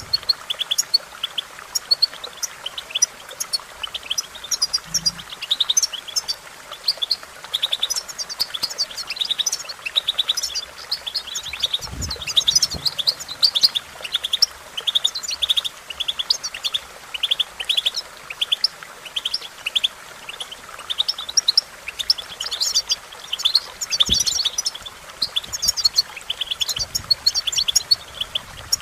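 European goldfinch song: a continuous, rapid twittering of short high chirps and trills, with two brief soft low thumps, one about halfway and one near the end.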